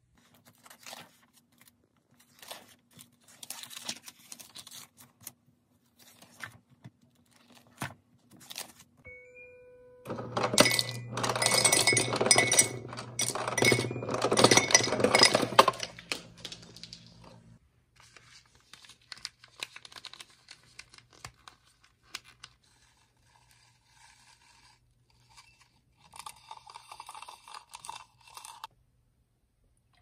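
Ice cubes clattering out of an ice-maker water purifier into a glass mug for about six seconds, after a short electronic beep, with the machine's motor humming underneath. Light paper rustles come before it and small handling clicks after.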